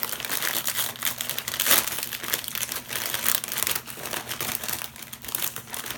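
Plastic bag of tortilla chips crinkling as it is handled, a dense crackle with the loudest rustle a little under two seconds in.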